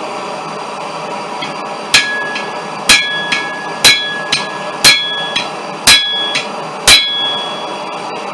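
Hammer striking steel on an anvil: six ringing blows about one a second, each followed by a lighter tap, over a steady background hum.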